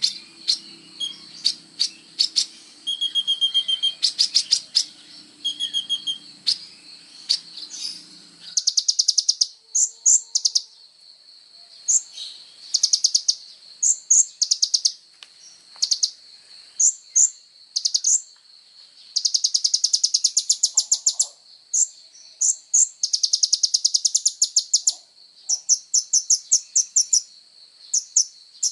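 Kolibri ninja sunbird singing energetically: rapid high trills and runs of quick repeated chirps in phrases of one to three seconds, with short pauses between. A steady high-pitched shrill runs underneath, and a low hum is heard for about the first eight seconds.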